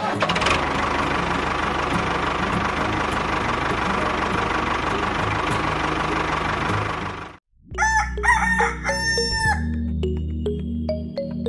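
A steady whirring noise runs while the small motor-driven mini tractor pulls its trolley, and it cuts off sharply about seven seconds in. A rooster then crows for about two seconds, and light music with bell-like notes follows.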